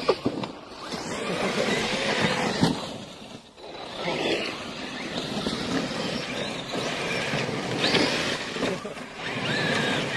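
Traxxas X-Maxx electric RC monster trucks running in sand, their brushless motors whining and gliding up and down in pitch as they accelerate and back off, over a noisy rush. The sound drops away briefly about three and a half seconds in, then picks up again.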